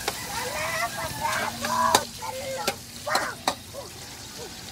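Metal spatula scraping and clinking against a steel wok as diced pork fries and sizzles. Several sharp clinks stand out, the loudest about two seconds in, with wavering pitched sounds in the background.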